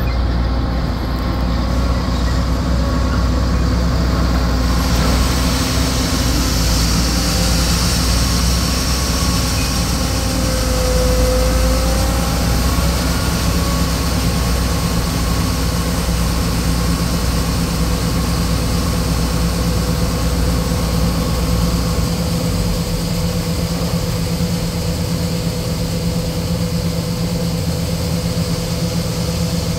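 Combine harvester running steadily while unloading grain through its auger into a hopper grain trailer, with a semi truck's engine running alongside. A steady hiss comes in about five seconds in, and the deep low rumble drops away about twenty-two seconds in.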